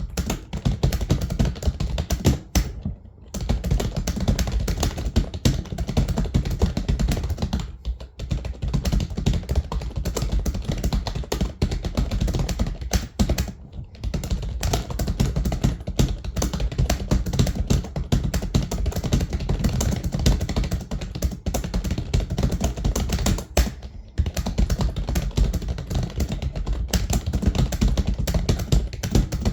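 Fast, continuous typing on a computer keyboard, with a dense run of key clicks that breaks off briefly four times.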